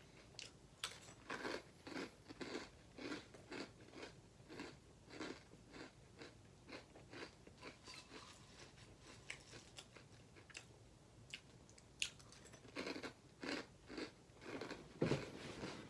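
Close-up chewing of a mouthful of crunchy Apple Jacks cereal: a run of short crisp crunches, about two to three a second, with a brief lull about two-thirds of the way through.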